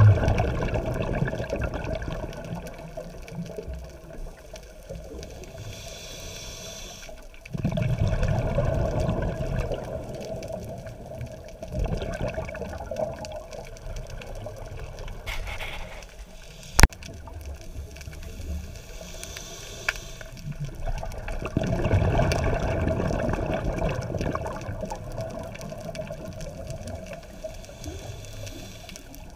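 Exhaled air bubbling from a scuba diver's regulator underwater. There are several long bubbling surges, each lasting a few seconds, with quieter water noise between them and one sharp click near the middle.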